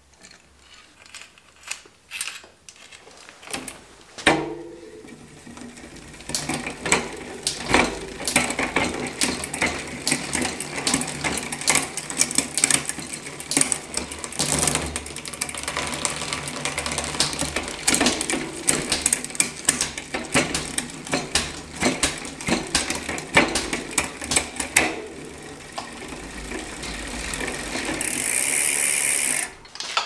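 Bicycle drivetrain turned by hand in a work stand: the chain runs over the chainring and rear cassette with a steady whirr and dense clicking, after a few scattered clicks at the start. A loud hiss lasts about a second and a half near the end.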